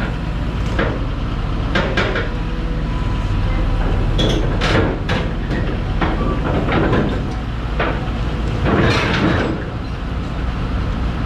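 Hyundai R300LC excavator's diesel engine running steadily while its steel tracks crawl up onto a lowboy trailer, with repeated clanks and knocks as the track shoes strike the ramp and deck.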